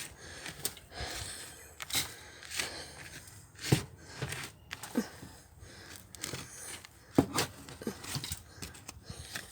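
Garden shovel digging into hard soil: irregular sharp strikes and scrapes of the blade, several times, a second or so apart.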